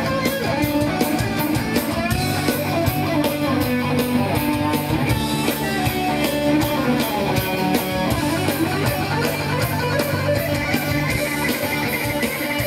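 Heavy metal band playing live, with an electric guitar to the fore over drums.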